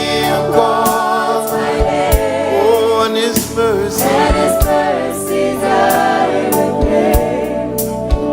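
Gospel song: a group of women singing together over a backing band, with drum and cymbal strikes keeping the beat.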